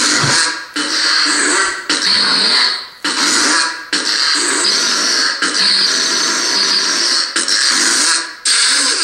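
Lightsaber sound board playing a joke sound font of fart noises as the saber is swung. It is a loud string of about eight tooting sounds, each a second or so long, with short breaks between them.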